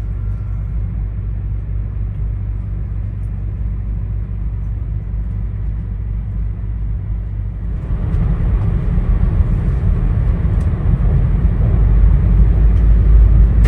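Running noise of an E2 series 1000 Shinkansen heard from inside a passenger car: a steady low rumble with hiss. About eight seconds in it turns suddenly louder and harsher and keeps building.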